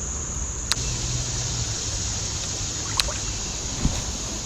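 Creek water running steadily, with three short sharp clicks spread through it.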